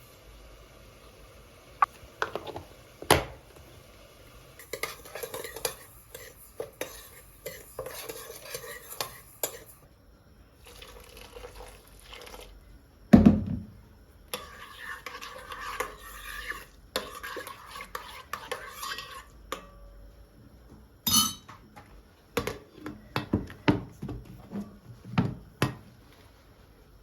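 Kitchen utensils and dishes being handled: clinks, scrapes and knocks of cutlery and bowls during food preparation, with one heavy knock about halfway through.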